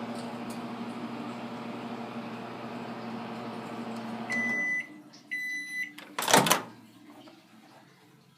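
Microwave oven running with a steady hum, then stopping about four and a half seconds in with two beeps at the end of its cycle. A loud clunk follows as the door is opened.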